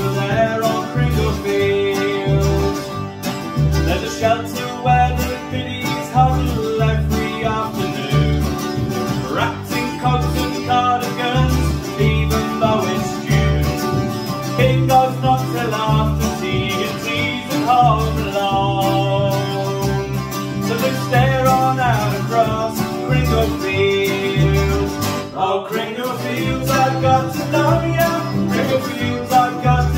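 Acoustic folk band playing an instrumental break: mandolin picking the melody over a strummed acoustic guitar, with an upright double bass plucking a steady pulse underneath.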